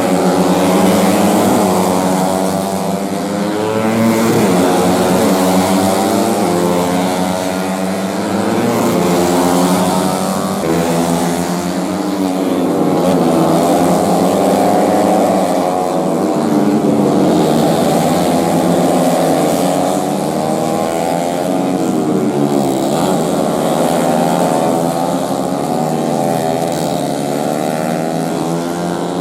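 Several tuned four-stroke underbone race motorcycles running hard, their engines overlapping and rising and falling in pitch as they rev through the gears and go by.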